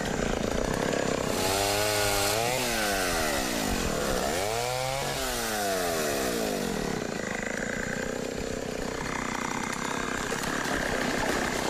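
Chainsaw cutting through a log, its engine pitch rising and falling twice, then running steadier.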